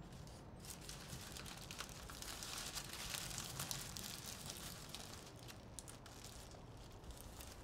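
Crumpled paper wrapping crinkling and rustling in a person's hands, a dense run of small crackles that is loudest in the middle and tails off near the end, over a low steady hum.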